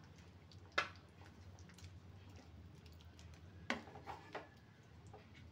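A wooden spatula knocks against a steel cooking pot while a thick curry is stirred. There is one sharp knock about a second in, then a short cluster of knocks near four seconds, over a low steady hum.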